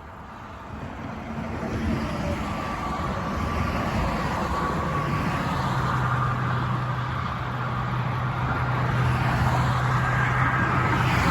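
Road vehicle noise: tyre and engine rumble that builds over the first two seconds and then holds steady, with a low steady hum joining about halfway through.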